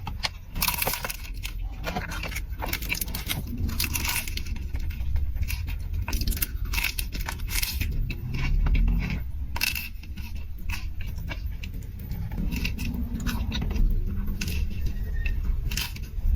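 Close-miked eating: food being chewed and crunched, with many sharp clicks and crackles over a low rumble.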